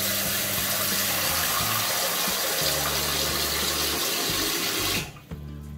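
Bathroom sink faucet running full into a ceramic pedestal basin, a steady rush of water that cuts off suddenly about five seconds in. The water is being run to test the drain after the sink's drain pipe was replaced.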